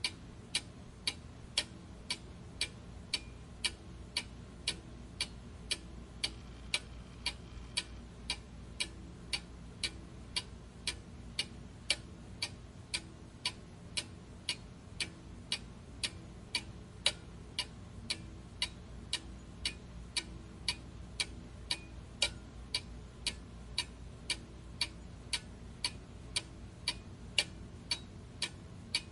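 A clock ticking steadily and evenly, about two ticks a second, over a faint low hum.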